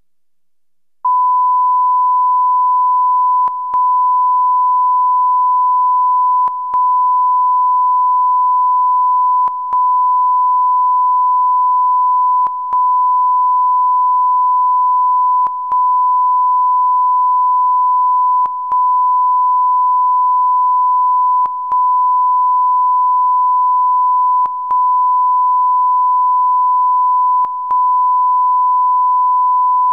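Steady 1 kHz line-up test tone, a single pure pitch that starts about a second in and is broken by a brief dip about every three seconds.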